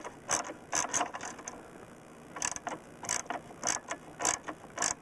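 Ratchet wrench with a 3/4-inch socket clicking in short strokes as it tightens the motor-mount bolts, in two runs with a brief pause between them.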